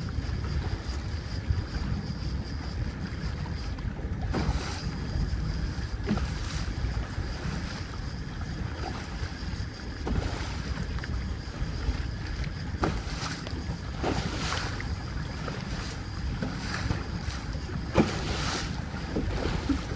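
Wind buffeting the microphone over a boat's motor running low in forward gear, with water washing against the hull and a few brief knocks.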